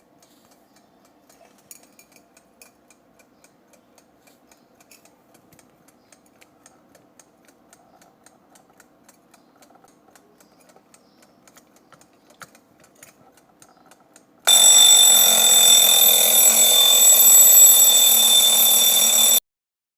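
A 1977 Westclox mechanical alarm clock, freshly cleaned and lubricated and running again, ticking faintly and steadily. About two-thirds of the way in its alarm bell rings loudly for about five seconds, then cuts off suddenly.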